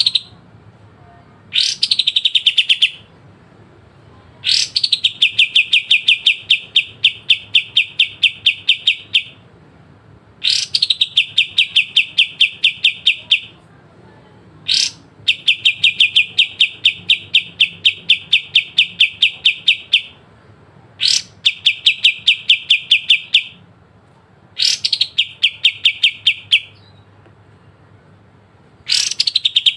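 A kapas tembak (white-shouldered triller) singing sharp, rapid trills. About eight bouts of quickly repeated identical notes each open with a short falling note and run one to five seconds, with brief pauses between them.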